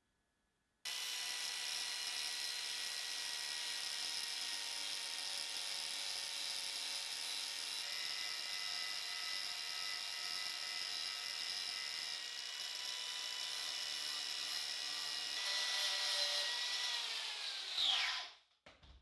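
Angle grinder with a flap disc running against the edge of a steel knife blade: it starts about a second in with a steady high whine, then winds down with falling pitch and stops near the end, followed by a short knock.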